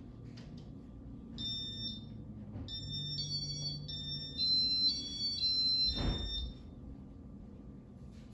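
Casablanca Panama ceiling fan's electronic chimes: a short run of high beeping tones in several pitches, like a little tune, lasting about five seconds. A thump comes near the end of the tones.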